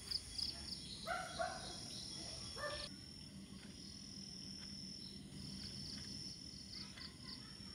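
Crickets chirping faintly, a high trill that pulses in places and holds as a steady tone in others, over a faint low hum.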